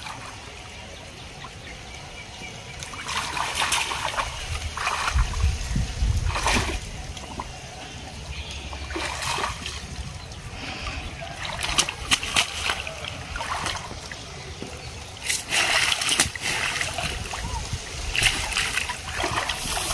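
Shallow pond water splashing and sloshing in short irregular bursts as a cast net is dragged in through it.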